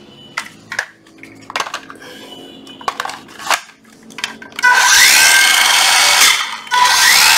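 Handling clicks and knocks, then a Hitachi 14.4 V cordless circular saw triggered twice with no load: each time the motor spins up with a rising whine, runs for about a second and a half and stops quickly, as the saw has a brake.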